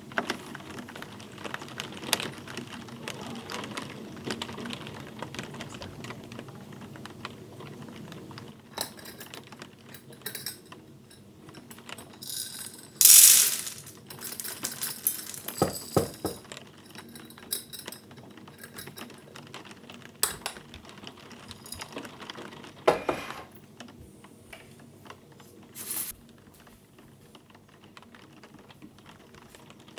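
Light, irregular clicks and taps of small hard objects being handled, with a brief, louder hiss about thirteen seconds in and a sharper knock near twenty-three seconds.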